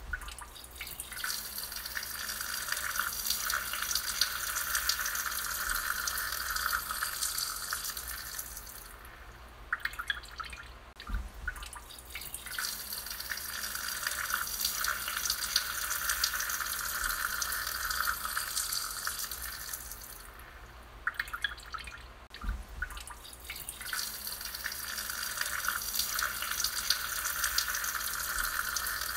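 A woman urinating while seated on a toilet: a steady stream of urine splashing into the bowl water. It tapers off into a few dribbles and drips about nine seconds in and again about twenty seconds in. Each time the stream starts again, three streams in all.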